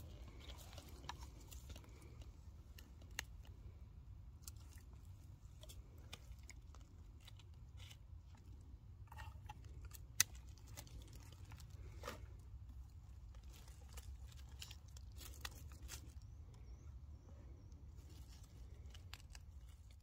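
Faint crunching and crackling of dry pine needles, leaves and twigs on the forest floor, in scattered irregular clicks with one sharper crack about ten seconds in, over a low steady rumble.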